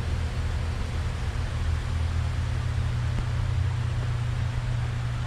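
Steady low mechanical hum under a constant hiss.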